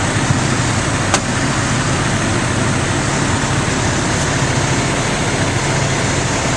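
Fire engine's engine running steadily, a constant low drone, with one short click about a second in.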